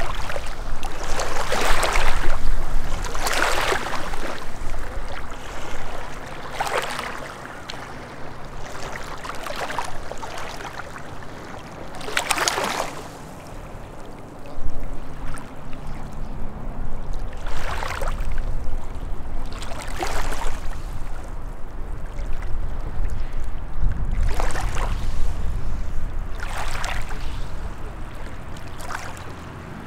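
Small waves lapping at a rocky lake shore: a soft wash of water at the stones every two to three seconds, some louder than others.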